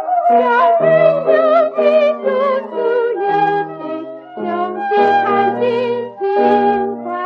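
1935 78 rpm record of a woman singing a Chinese children's song with vibrato, over a simple instrumental accompaniment.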